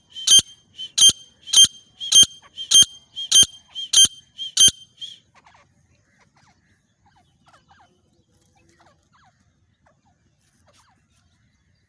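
Female grey francolin (desi teetar) calling: about eight sharp, high notes in a steady series roughly every 0.6 s, stopping about five seconds in. Faint short chirps of small birds follow.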